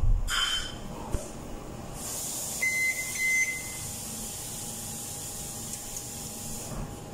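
A thump at the start, then a Wolf wall oven preheating: a steady airy hiss from its fan starts about two seconds in, and the control panel gives two short beeps just after.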